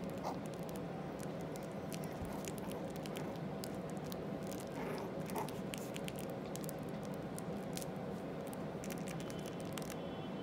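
Chihuahua puppies scuffling and play-wrestling on a padded dog bed: soft rustling, light scratching and many small clicks, with a couple of faint squeaks about five seconds in, over a steady background hum.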